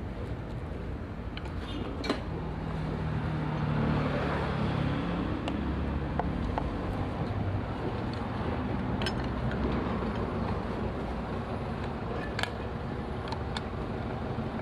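Steady rumble of passing road traffic, with one vehicle going by louder about three to five seconds in, and a few sharp clicks.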